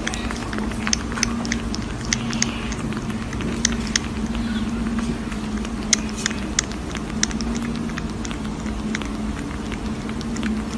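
Newborn kitten suckling from a nursing bottle: irregular wet sucking and smacking clicks, over a steady low hum.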